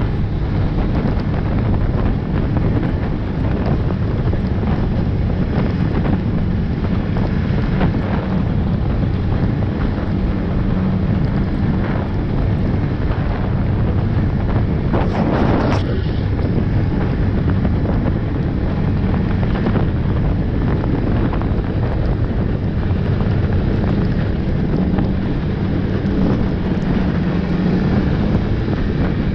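Snowmobile engine running steadily under the rider at trail speed, with wind buffeting the microphone. A short rush of noise about halfway through.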